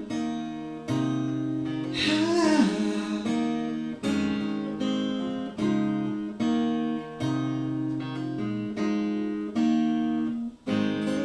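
Song music: acoustic guitar playing chords, a new chord struck about every second and left to ring, in an instrumental passage between sung lines.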